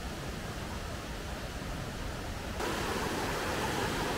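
Mountain stream rushing over rocky rapids in a steady roar of water, which grows louder about two-thirds of the way through.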